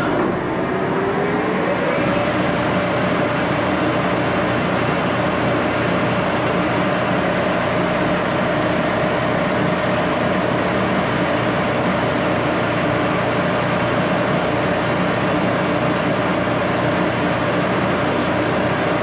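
Axelson 14 x 30 heavy geared-head lathe running, its headstock gears giving a steady whine over the machine noise. The whine rises in pitch over the first two seconds as the spindle comes up to speed, then holds steady.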